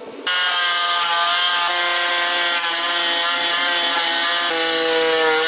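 Jigsaw mounted upside down under a homemade saw table, starting abruptly just after the start and running with a steady whine while its reciprocating blade cuts through a wooden board. The pitch dips slightly about four and a half seconds in.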